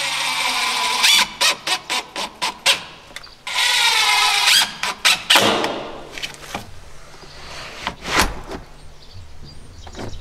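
DeWalt cordless drill driving screws into a steel door strike plate. The motor whines in two runs of about a second each, and each run is followed by a quick string of sharp clicks. A single knock comes later.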